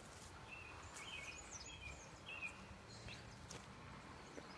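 Faint birdsong in woodland: a run of short, quick chirps in the first couple of seconds, and a few higher notes later, over quiet outdoor background noise, with a few soft clicks.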